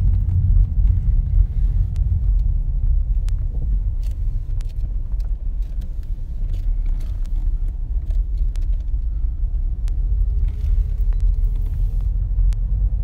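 Car driving slowly, heard from inside the cabin: a steady low rumble of engine and tyres, with scattered light ticks and knocks.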